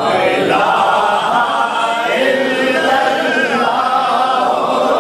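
A gathering of men's voices chanting together in unison, an unaccompanied devotional response to the naat reciter, with no pauses.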